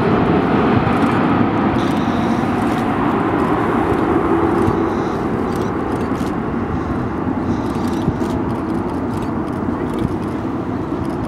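Steady engine noise of an Airbus A340-300's four CFM56 turbofans on final approach, easing slightly in level over the seconds.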